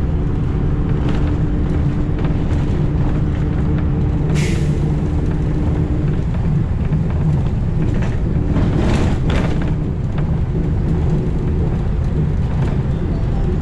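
Cabin noise of a city bus under way: a steady low drone and road rumble, with a hum of a few steady tones that fades out about six seconds in. A short hiss comes about four and a half seconds in.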